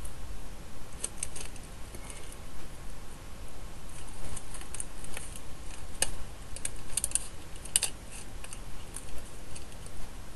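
Scissors snipping through a foam-backed rubber stamp sheet: a series of irregular short snips and clicks as the blades close, several in quick succession.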